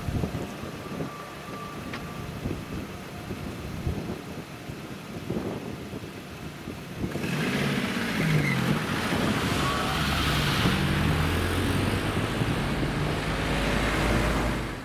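Cars and a van towing a trailer pulling away and driving over a level crossing: engines and tyres, getting louder about halfway through as the vehicles come closer, with engine pitch rising and falling.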